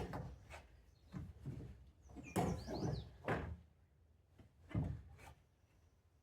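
Irregular knocks and clunks of a complete front strut assembly being worked up into a car's wheel well, with a longer scraping stretch a couple of seconds in as it is turned and pushed into position.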